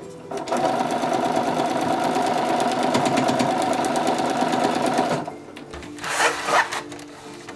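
Home sewing machine running steadily for about five seconds, stitching fabric onto a foundation paper pattern, then stopping. Soon after comes a short rustle of paper as the block is handled.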